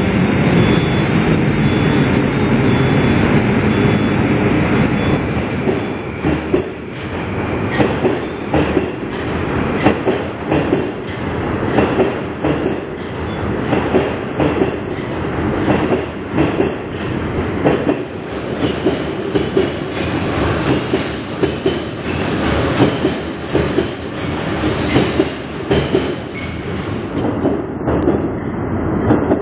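Moscow Metro train running along the platform: a steady loud rumble for the first several seconds, then the wheels clacking over the rail joints in a repeating clickety-clack as the cars pass.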